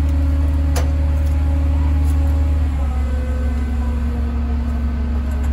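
A large engine running steadily nearby, with a low hum and a few steady tones above it that shift slightly a little before halfway. A single sharp click about a second in, while the brake hoses between the rail vehicles are being handled.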